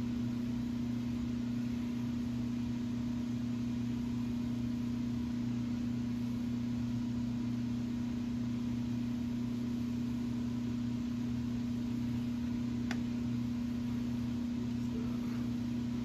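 Steady low electrical machine hum in a machine shop, with a faint single click about 13 seconds in.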